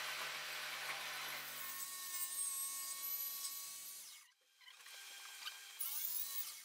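TACKlife TJS02A barrel-grip jigsaw cutting through a wooden board, the blade rasping through the wood with a faint steady whine from the motor. The sound cuts out abruptly about four seconds in and comes back much fainter.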